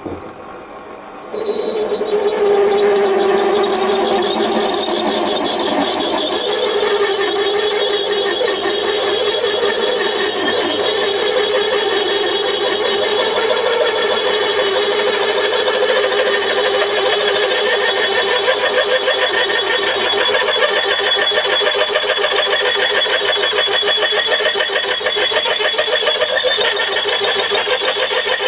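Warco WM180 lathe drilling with an 18 mm twist drill fed from the tailstock. The cut begins about a second and a half in and continues as a loud, steady ringing, rattling tone as swarf curls out of the hole.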